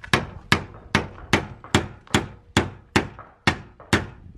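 Hammer striking the lip of a Lexus IS200's steel front fender from inside the wheel arch: a steady run of about ten blows, a little over two a second. The fender lip is being hammered over (rolled) to make room for the tyre.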